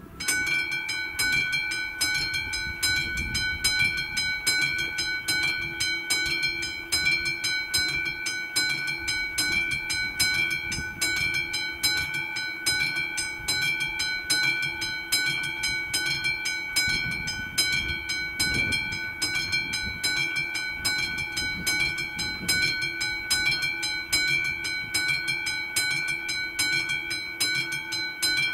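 Railroad level crossing warning bell ringing with an even beat of about two to three strikes a second, switching on abruptly: the crossing has been activated to warn of an approaching train.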